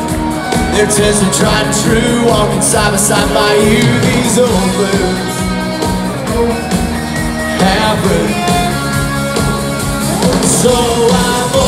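Live country band playing through a PA, with electric guitars, drums and a lead singer.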